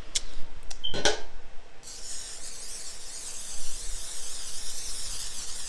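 Aerosol cooking spray hissing steadily onto a baking tray to grease it, one long spray of about four seconds starting nearly two seconds in. A few light clicks of handling come before it.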